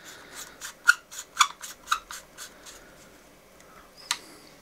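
LED bulb's metal screw base being turned by hand into a plastic lamp socket: a run of short scraping clicks, about four a second, then a single click about four seconds in.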